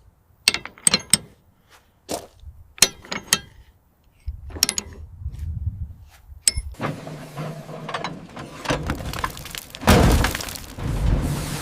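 A series of sharp clicks, snaps and cracks from hard objects, with scraping and knocking from about halfway, and a heavy thud about ten seconds in.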